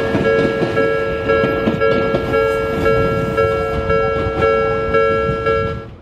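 Japanese railway level-crossing warning bell ringing, about two strokes a second, over the rumble and wheel noise of an Odakyu commuter train passing over the crossing. The sound fades out sharply at the very end.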